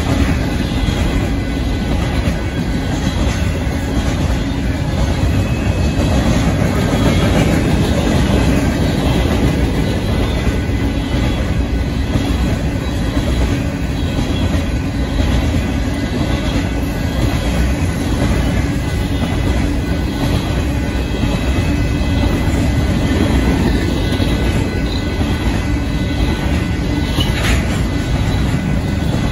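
Covered hopper cars of a Union Pacific grain train rolling steadily past at a grade crossing, their wheels clacking on the rails.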